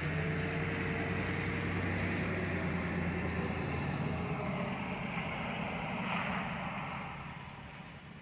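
Ford Explorer SUV driving slowly past across a wet lot: a low engine hum with tyres hissing on the wet pavement, fading as it pulls away near the end.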